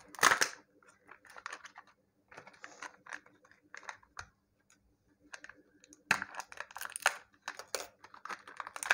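Hard plastic toy capsule and its thin inner cup being prised apart and handled: irregular plastic clicks, crackles and creaks, with a sharp crack just after the start.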